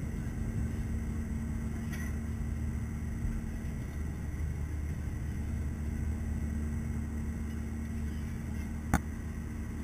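Steady low rumble of an airliner's jet engines and rushing air, heard inside the cabin during the climb after takeoff, with a steady hum over it. A single sharp click near the end.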